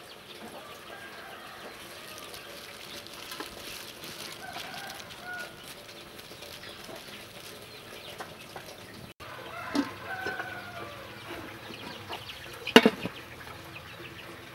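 Chickens clucking faintly in the background, with one sharp metallic clank near the end as the steamer's metal lid is set on.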